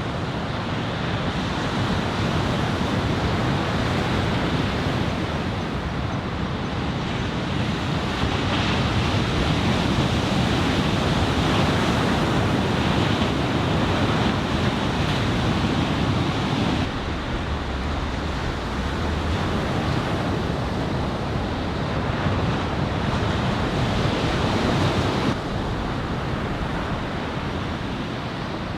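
Ocean surf breaking, a shoulder-high typhoon swell, with wind rumbling on the microphone. The sound drops abruptly about 17 seconds in, then again about 25 seconds in.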